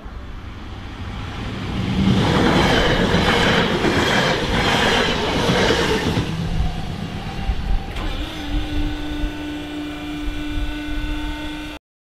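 A DB class 442 Talent 2 electric multiple unit passes close by at speed, its wheels rumbling and clattering in a regular beat for about four seconds before it recedes. From about eight seconds in, a steady humming tone sounds.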